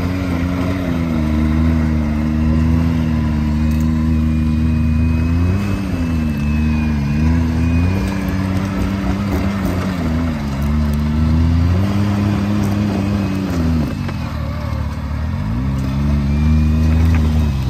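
Can-Am Maverick X3's turbocharged three-cylinder engine pulling under load as the side-by-side crawls up a rocky hill, its revs dipping and rising again and again. The revs drop away sharply near the end, then climb back up.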